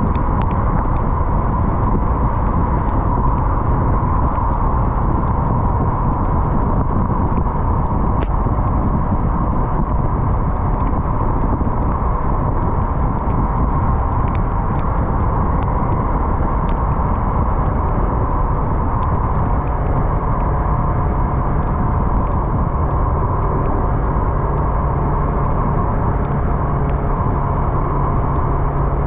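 Yamaha MT-03's parallel-twin engine running as the motorcycle is ridden, under a steady rush of riding noise. A steadier low engine hum comes in about two-thirds of the way through.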